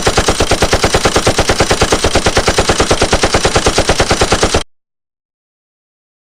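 Machine-gun fire sound effect: one continuous burst of rapid, evenly spaced shots, about eight a second, that stops abruptly after roughly four and a half seconds.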